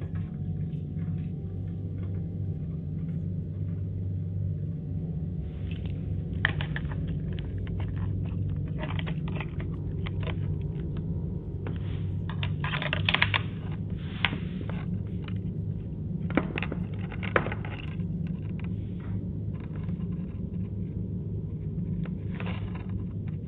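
Low-fidelity doorbell-camera audio: a steady low hum with scattered short knocks and scrapes, most of them bunched together around the middle.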